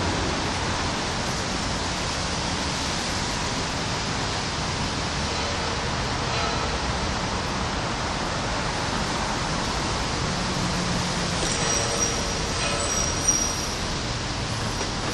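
Steady rain with traffic passing on a wet street, a constant even hiss. Faint high tones come in briefly about twelve seconds in, and there is a single click shortly after.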